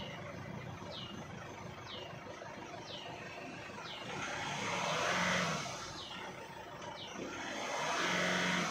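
Car engine idling, heard from inside the cabin, then revved gently twice: two slow rises and falls in engine speed, about four and seven seconds in.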